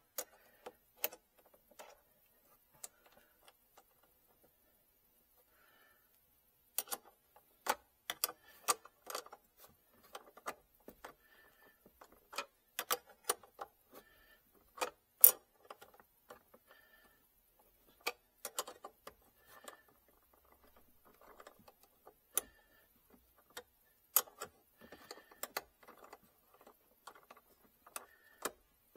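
Sharp metallic clicks and ticks from a hand tool working the clamp on a car battery terminal as it is refitted and tightened. After a quiet few seconds at the start, they come in irregular clusters.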